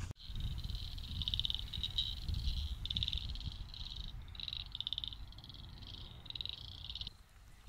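Frogs calling from the creek: a high, rapidly pulsed trill in short bursts one after another, stopping shortly before the end. Wind rumbles on the microphone underneath.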